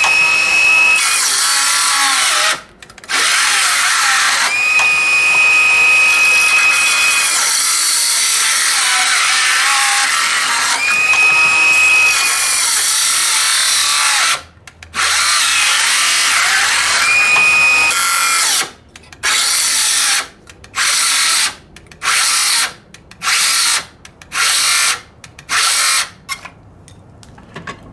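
DeWalt 12V XTREME brushless circular saw crosscutting 2x4s; between cuts the motor gives a steady high whine as the blade spins free, and twice it stops briefly. In the last third it runs only in short bursts, about one a second, cutting out each time as the knockoff 3-amp-hour battery gives out.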